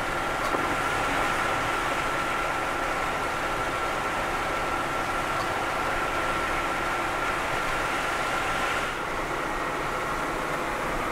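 Inside a moving vehicle's cabin: steady engine and tyre noise while driving on a wet, slushy road, with a thin steady high whine that drops out about nine seconds in.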